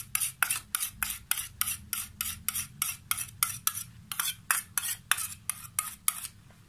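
Metal spoon stirring a thick yogurt-and-mayonnaise paste in a steel bowl, clinking and scraping against the bowl about three times a second. The strokes thin out near the end.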